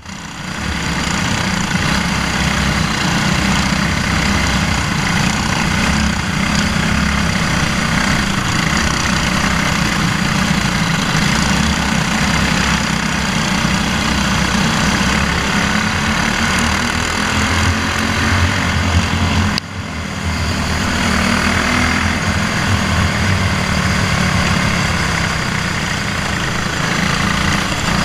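Briggs & Stratton Animal single-cylinder four-stroke kart engine running under way, heard from on board the kart, with other karts running close by. The sound dips briefly about two-thirds of the way through.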